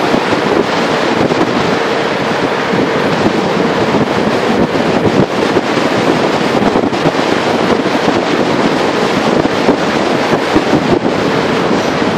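Loud, steady rush of wind over the microphone from riding a mountain bike downhill at high speed.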